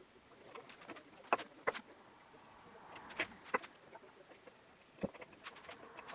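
A few sharp, light clicks and taps, about five spread across the stretch, as small parts are handled on the blade-guide assembly, over a quiet background.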